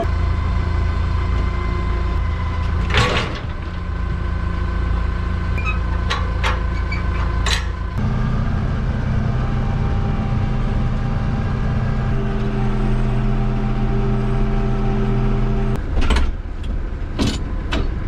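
Kubota tractor's diesel engine running steadily, heard from inside the cab. Its pitch shifts about eight seconds in and again near the end. A few short knocks and clanks come through, several of them close together near the end.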